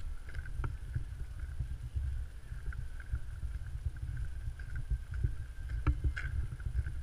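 Low rumbling wind and handling noise on a moving camera's microphone, with a few faint clicks and a faint steady high tone in the background.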